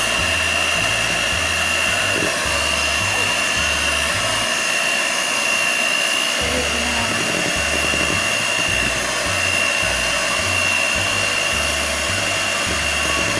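Electric hand mixer running steadily, its beaters whipping cream and condensed milk in a bowl: a constant motor whine over a whirring hiss.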